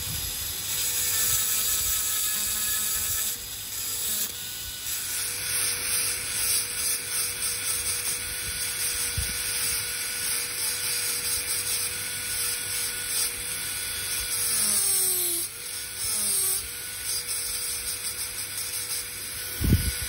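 High-speed dental handpiece running a bur that grinds the cusps of a plastic typodont molar: a steady high whine with gritty cutting noise. The pitch dips briefly twice around the middle as the bur bears down. A thump near the end.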